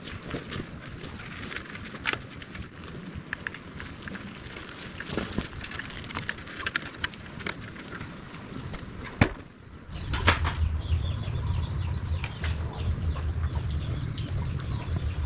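Insects droning steadily on one high pitch, over scattered light clicks and crunches of wood ash being tossed onto garden soil and boots stepping. About ten seconds in, after a brief dip, a low pulsing rumble comes in underneath.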